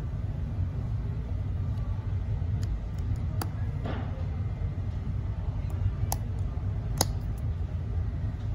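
A steady low rumble in the background, with a few small sharp plastic clicks and a brief scrape as the battery cover of a Polar heart rate sensor is pressed in and twisted shut.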